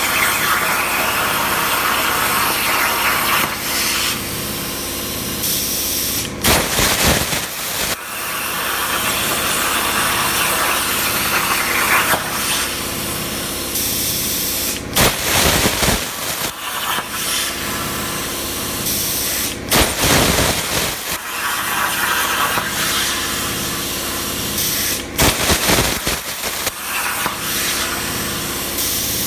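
Razorweld 45 plasma cutter at about 32 amps cutting 16-gauge sheet steel on a CNC table: a steady hiss of arc and compressed air, broken four times by short, louder blasts of air.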